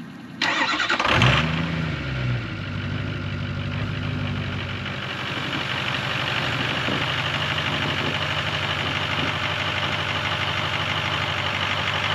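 Ford Excursion engine cranked by the starter for under a second, catching with a short rise in revs, then settling into a steady idle.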